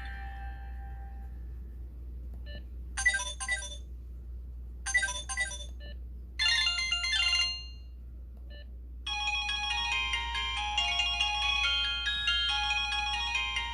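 Polyphonic ringtones from a Samsung SGH-T629 phone: three short bursts of quick high notes a second or so apart, then, about nine seconds in, a fuller, continuous melody starts.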